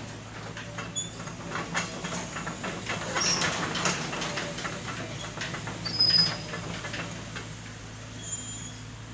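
Excavator engine running steadily while the machine works, with a string of metal clanks and knocks and a few brief high-pitched metal squeals.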